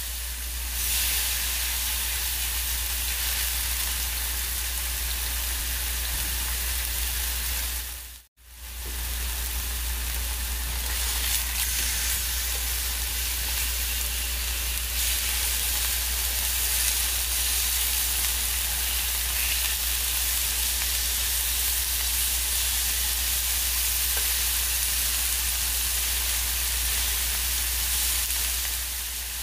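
Marinated chicken breast pieces sizzling steadily as they fry in hot oil in a pan. The sound drops out briefly about eight seconds in, then resumes.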